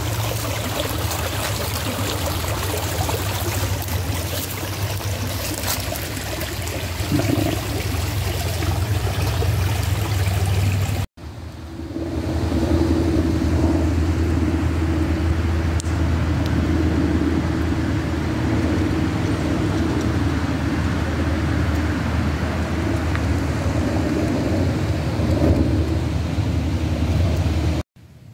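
A small stream running, an even hiss over a low rumble. About eleven seconds in it cuts to a steady low rumble with a steady hum.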